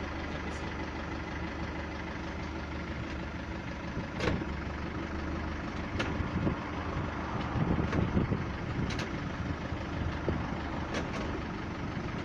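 Mercedes Vito 638's 2.2 CDI four-cylinder diesel idling steadily, with several short knocks, the first about four seconds in and a louder rougher patch around eight seconds. The knocks come from the automatic transmission on shifting from park or neutral into reverse.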